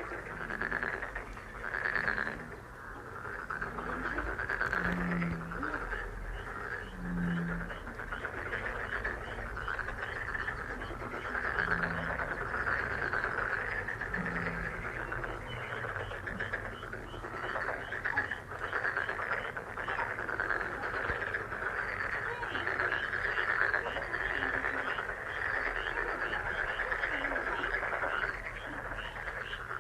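A chorus of many frogs calling steadily, with fast pulsing calls throughout and a few short, deep croaks standing out in the first half.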